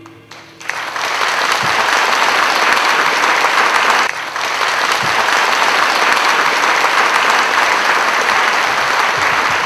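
The last held notes of the music fade out, and about half a second in an audience breaks into loud, sustained applause, dipping briefly about four seconds in.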